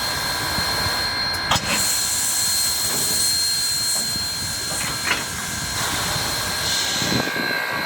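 ALCO 2-8-2 Mikado steam locomotive hissing steam over a steady rushing background, with two sharp clanks, one about a second and a half in and one about five seconds in.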